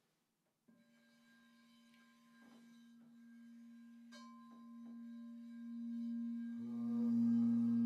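Quartz crystal singing bowl played by rubbing a mallet around its rim: a pure, steady tone starts about a second in and swells gradually louder, with a few faint taps along the way. Near the end a lower tone and more overtones join in and the sound grows fuller.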